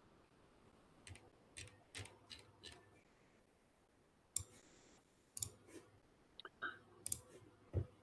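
Faint, irregular clicks, about ten over several seconds, over quiet room tone: computer mouse and keyboard clicks at a desk microphone.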